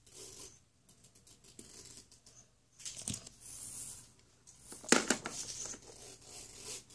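Small plastic toys being handled: scattered rustles and light plastic clicks, with a sharper plastic knock about five seconds in as a toy is set into a compartment of a plastic toy carrying case.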